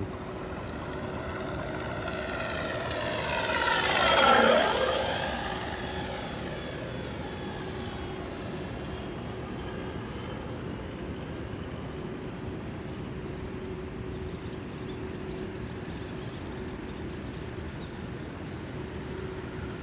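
Electric RC Flightline Corsair F4U-1A flying past: propeller and motor drone mixed with the simulated warbird engine sound from its onboard speaker system. It is loudest about four seconds in, with the pitch dropping as it passes, then settles to a steady drone.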